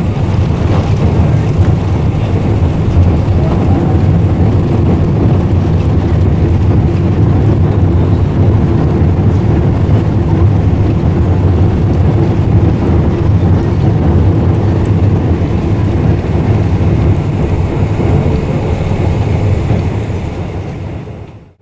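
Boeing 747-400 jet engine and airflow noise heard from inside the cabin: a loud, steady low rumble with a hiss above it, fading out near the end.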